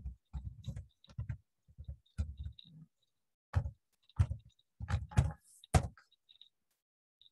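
Computer keyboard typing: a dozen or so irregular keystrokes, the last and loudest ones about five to six seconds in, then it stops.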